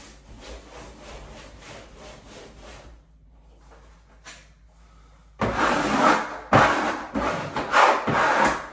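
Rubbing strokes of a hand tool over freshly hung wallpaper, quick and faint at first, then much louder for the last three seconds.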